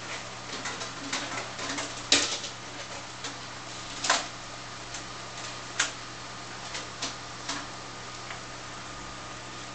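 Steady hum of the aquarium's filter and pump running, with irregular short clicks and taps over it, the sharpest about two and four seconds in.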